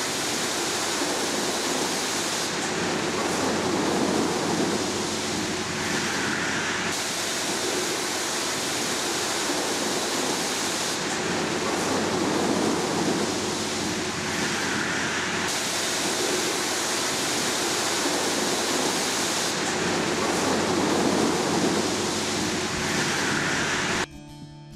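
Water spraying hard in a truck wash: a loud, steady rushing hiss that swells and eases in a pattern repeating every few seconds, then cuts off suddenly near the end.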